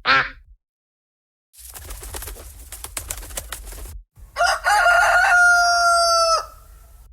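A string of cartoon sound effects: a short falling sweep, then about two and a half seconds of crackling noise with clicks, then a rooster crowing at a steady pitch for about two seconds, the loudest sound here.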